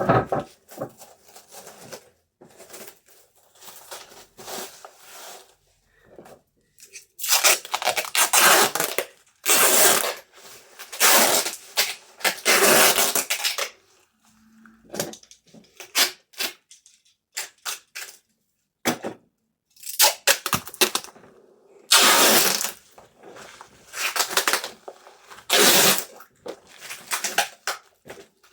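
Packaging materials handled while an order is packed: clicks and rustling, broken by several loud tearing or crinkling stretches of a second or two each, the loudest in the middle and near the end.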